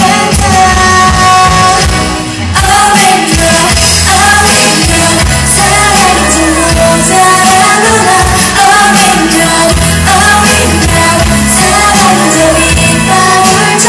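Live pop music in a large hall: a female singer singing a melody into a microphone over loud band accompaniment, with a short dip in the music about two seconds in.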